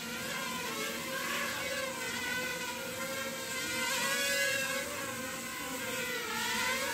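Sharper Image DX-2 mini quadcopter's motors and propellers whining in flight, the pitch wavering up and down as the throttle changes.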